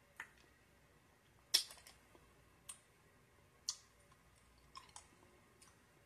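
Quiet, scattered mouth clicks, about six in all, from a hard cough drop being sucked and moved around the mouth; the loudest comes about a second and a half in.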